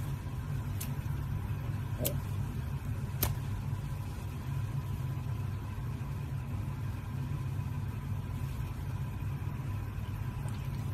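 A steady low hum with a faint, thin high tone running through it, and three light clicks in the first three or four seconds.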